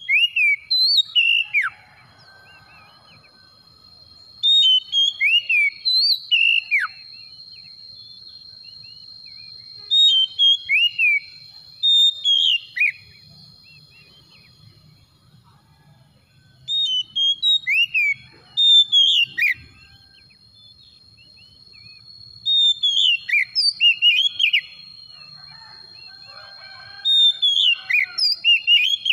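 Oriental magpie-robin singing: about six bursts of loud, varied whistled phrases full of sharp down-slurred notes, each a couple of seconds long, with pauses of a few seconds between them. A faint steady high tone runs underneath.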